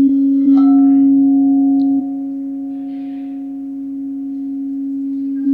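Quartz crystal singing bowls ringing: one low bowl sounds a steady, sustained tone, and a second, higher-pitched bowl is struck about half a second in and rings on over it.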